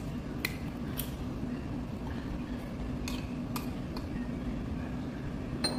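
A steady low hum with a few light clicks and clinks of glass and tableware as a green soju bottle is handled. Near the end comes a brighter, ringing glass clink.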